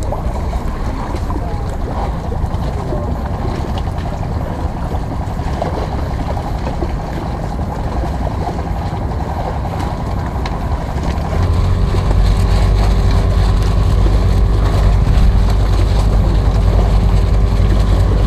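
Low rumble of wind on the microphone, joined about eleven seconds in by the steady hum of a motorboat engine that grows louder and holds.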